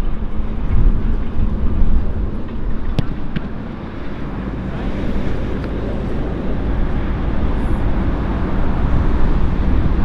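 Strong gusting wind buffeting the microphone, a heavy low rumble that swells and eases, with one sharp tap about three seconds in.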